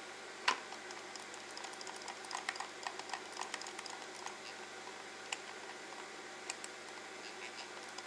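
Plastic shell of a Logitech MX mouse snapping shut with one sharp click, followed by a scatter of light plastic clicks and ticks as the reassembled mouse is pressed and handled.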